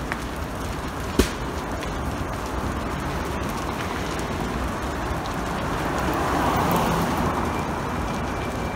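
Large fire burning through a golf-cart shed and nearby trees: a steady rushing noise, with one sharp pop about a second in and a swell a little past the middle.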